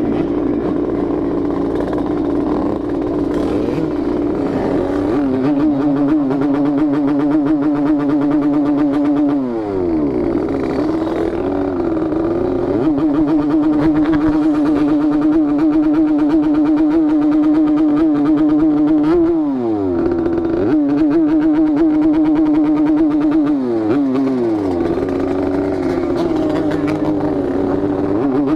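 Yamaha RX-King's 135 cc single-cylinder two-stroke engine running steadily under way. Its note dips and climbs back three times, as the revs drop and rise again.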